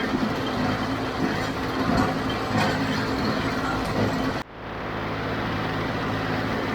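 John Deere 5055D diesel tractor running steadily under load while pulling a John Deere 348 square baler, with irregular knocks and clatter from the baler. About four and a half seconds in the sound drops out abruptly, then the steady engine running returns with less clatter.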